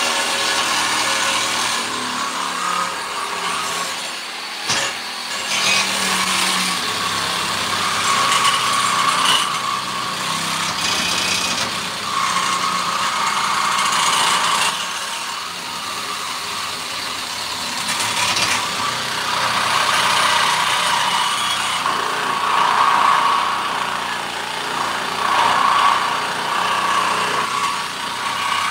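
Cordless angle grinder cutting through steel stock: the motor runs continuously while the wheel grinds the metal, the cutting noise swelling and easing as the wheel bites.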